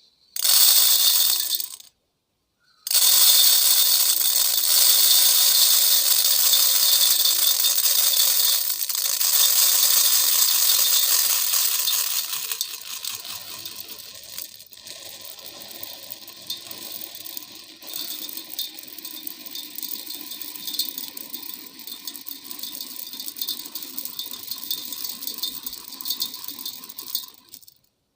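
Raw rice grains rattling on an aluminium plate, a dense patter of tiny clicks. It breaks off briefly about two seconds in, runs loud again, then turns quieter and sparser about twelve seconds in until it stops near the end.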